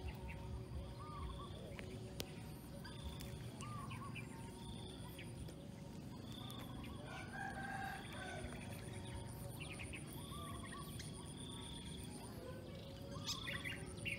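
A rooster crowing once, about halfway through, among short repeated bird chirps, over a steady high-pitched whine.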